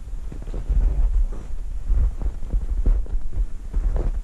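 Footsteps in snow with uneven low thumping and rumble from a handheld camera jostled while walking.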